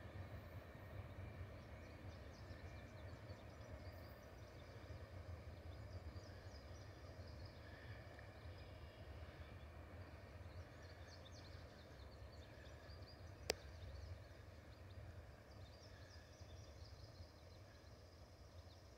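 Near silence: faint outdoor ambience with a steady low rumble and faint high chirps, broken by a single sharp click about two-thirds of the way through.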